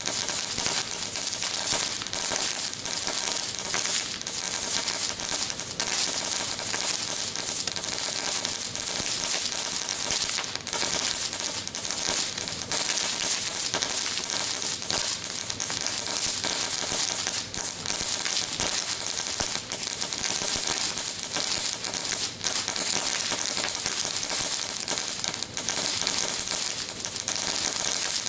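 Cracker Barrel ground fountain firework burning, a steady spray of sparks with a continuous hiss and rapid crackling pops.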